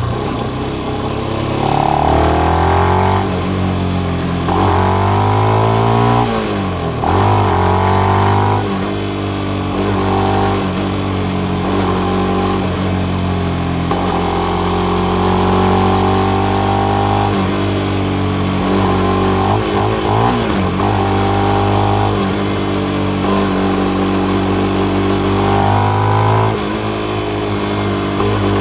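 Benelli BN125's 125 cc single-cylinder four-stroke engine through its stock exhaust with the dB killer fitted, under way. The engine note climbs several times in a row with short breaks between, as through gear changes. It then holds a steady cruising pitch, dips briefly past the middle, and climbs once more near the end.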